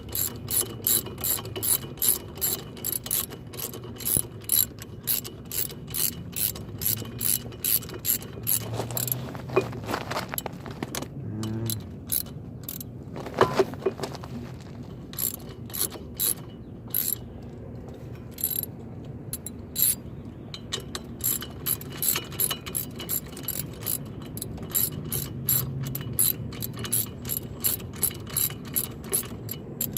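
Hand ratchet wrench clicking in quick, even strokes, about three clicks a second, with a couple of short pauses, as a lug nut is turned on a new wheel stud.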